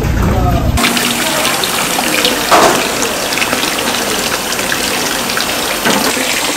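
Commercial kitchen work: a steady rushing hiss, with scattered knocks and clinks of metal bowls, trays and a knife on a wooden cutting board, the loudest knock about two and a half seconds in. A low hum cuts off just under a second in.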